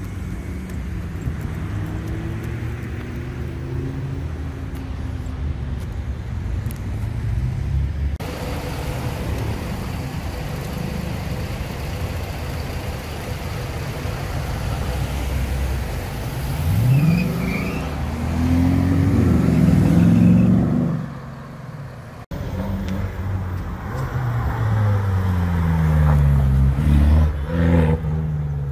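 Sports car engines accelerating hard in three short clips, the engine note climbing and then dropping back with each gear change. The loudest passage comes around twenty seconds in, and a last car revs up hard near the end.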